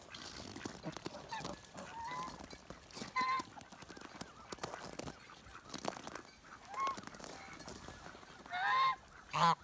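Domestic geese, a gaggle of Toulouse, African and hybrid geese, honking in separate calls every couple of seconds. The calls come louder and closer together near the end.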